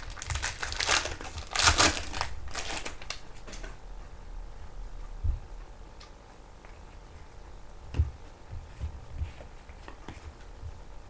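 Foil trading-card pack wrapper crinkling and tearing as it is ripped open, loud for the first three and a half seconds. Then quieter handling of the cards, with a few soft knocks.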